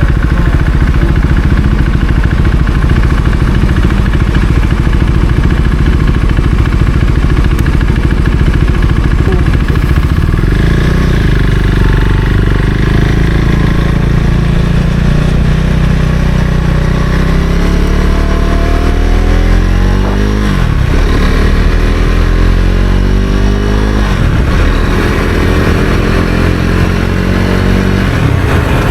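Husqvarna Svartpilen 401's single-cylinder engine running steadily for about ten seconds, then accelerating with its pitch climbing. Two upshifts, about two-thirds of the way through and a few seconds later, each drop the pitch before it climbs again.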